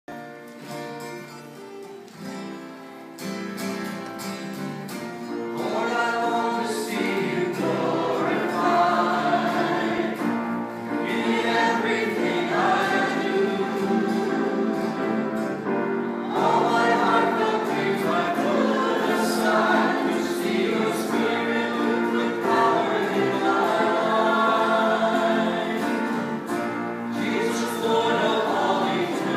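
Small worship band playing a gospel-style song on acoustic guitars and grand piano, with several voices singing together. It opens more quietly on held instrumental notes, and the singing comes in and the music grows louder a few seconds in.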